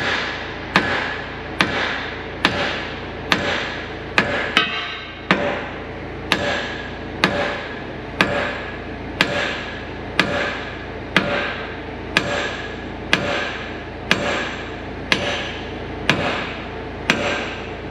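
Steady hammer blows on a steel pin at a bulldozer's ripper cylinder mount, about one a second, each strike ringing briefly off the metal, as the pin is driven to free the cylinder rod.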